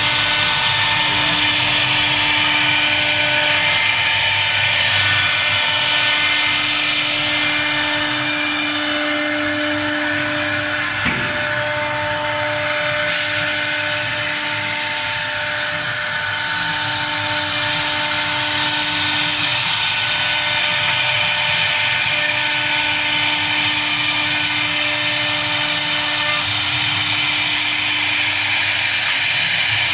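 SD-1325 CNC router running: a steady machine whine over a broad hiss, with the main tone dropping out and returning several times.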